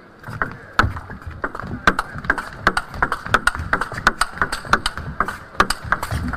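Table tennis rally: the ball clicking sharply off the rackets and bouncing on the table in a long, quick exchange, about two or three hits a second.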